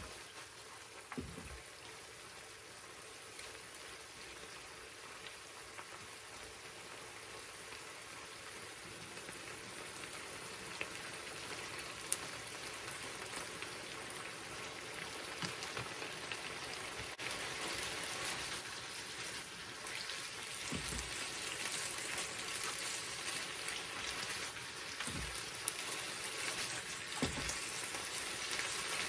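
Bamboo shoots and fried fish cake cooking down in a frying pan over high heat, the last of the sauce sizzling and bubbling, getting louder as the liquid boils away toward dryness. A few soft knocks from stirring with chopsticks.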